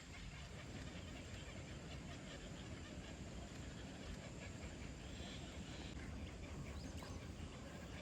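Steady outdoor background noise with faint, scattered bird calls.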